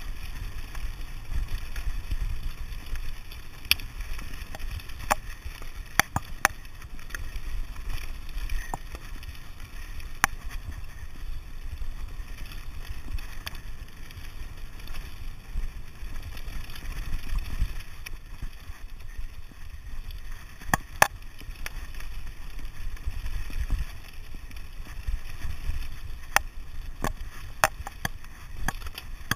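Mountain bike descending a rough gravel track at speed. Tyre noise on the stones and wind buffeting the microphone make a steady low rush, with sharp clicks and rattles from the bike scattered through it.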